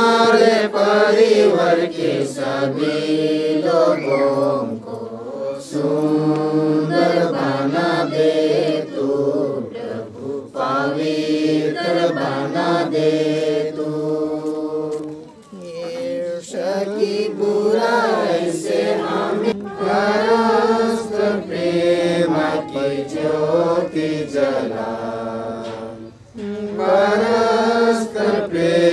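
Singing voices in a slow, chant-like melody, held in long phrases with short breaks between them.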